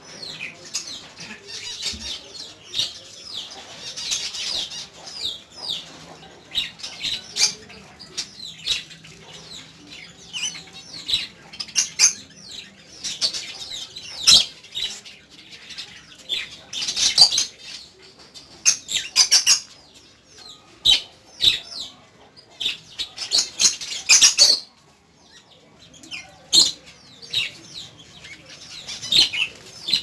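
A flock of finches and other small cage birds in an aviary chirping and twittering almost without pause, many high, short calls overlapping, with now and then a sharp click or flutter; the chatter eases briefly about 25 seconds in.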